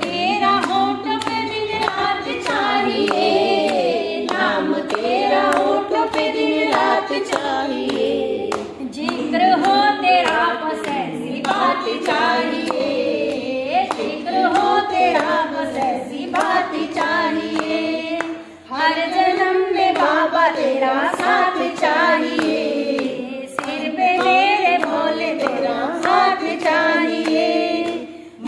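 Women singing a Hindi devotional bhajan to Shiva, with hand-clapping keeping a steady beat under the song.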